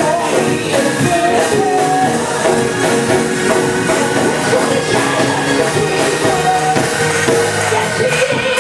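Loud live gospel praise music with a fast, steady beat and voices singing over it.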